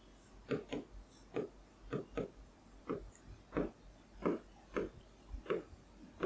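Pen tip tapping and stroking on a smart-board screen while handwriting: a run of faint, short, irregular clicks, about two a second.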